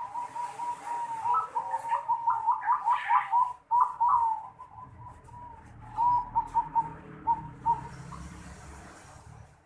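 Zebra dove (perkutut) cooing in the unusual song style breeders call noklak: a quick run of short clipped coo notes over the first four seconds, then after a pause a shorter run about six seconds in.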